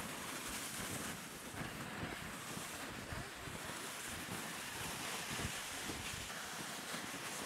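Footsteps crunching through snow and a plastic sled scraping along behind on its tow rope, in an uneven walking rhythm, with wind buffeting the microphone.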